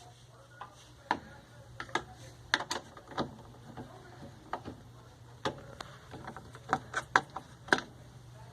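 Irregular sharp clicks and knocks of hand-handled tools and parts during washing machine repair, a dozen or more spread unevenly, over a steady low hum.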